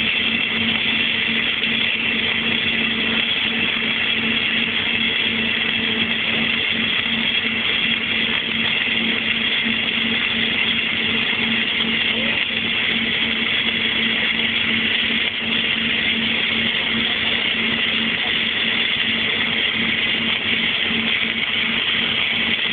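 Welding equipment for an Innershield flux-cored welding test running steadily: a constant hum with a dense, even hiss over it.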